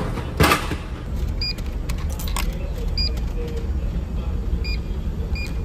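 Coins dropped one by one into a vending machine's coin slot: sharp clinks, each with a short electronic beep, four or five in all. A loud clatter comes about half a second in, and the steady low drone of the ferry's engines runs underneath.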